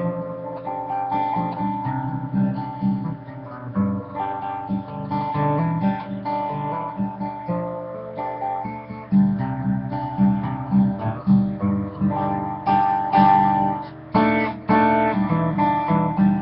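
Acoustic guitar played alone, plucked and strummed in a folk rhythm as an instrumental passage.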